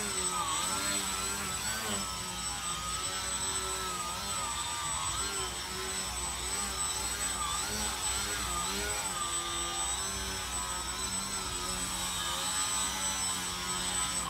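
Small electric motor and propeller of a foam 3D RC airplane buzzing as it hovers nose-up, its pitch wavering up and down as the throttle is worked to hold the hover, with a thin steady high whine above.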